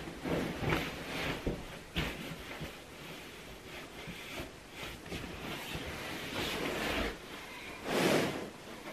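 Bedding rustling and swishing as a comforter is spread and smoothed over a mattress by someone kneeling on the bed, with a soft bump about two seconds in and a louder swish near the end.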